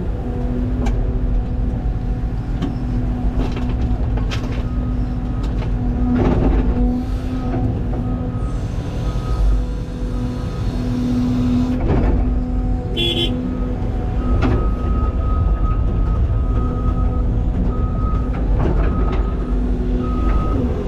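CAT 323 excavator's diesel engine and hydraulics running steadily under load while digging, with scattered clunks. A high intermittent beeping tone comes and goes from about a third of the way in.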